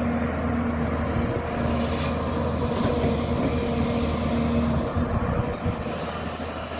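Heavy diesel engine running at a steady speed, with a constant low hum.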